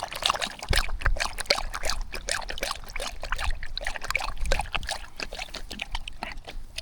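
Dog lapping water, a quick irregular run of wet splashy laps.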